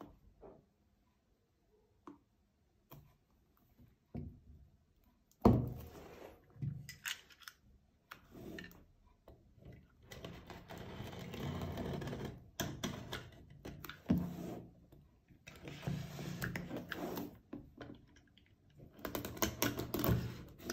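Handling noises of a product box being unpacked. A sharp knock comes about five seconds in, then irregular stretches of rubbing and scraping packaging, with scattered clicks and taps near the end.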